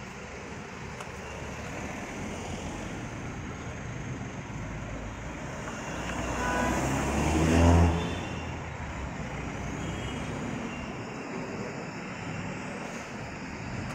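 Steady road-traffic noise, with one motor vehicle passing close by: it builds to its loudest about eight seconds in, then quickly fades back.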